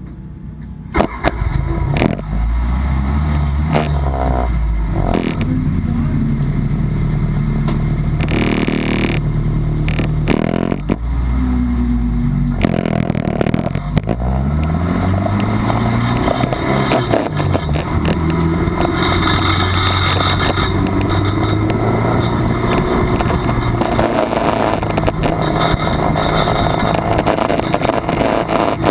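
Honda Civic race car's B18 non-VTEC four-cylinder engine at full throttle, its pitch climbing and dropping back repeatedly as it revs through the gears, over a steady wash of wind and road noise with occasional sharp knocks.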